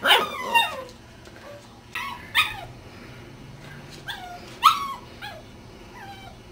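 Cardigan Welsh Corgi puppy yipping and whining: a string of short, high-pitched calls, each falling in pitch, with the loudest ones at the start and near the end.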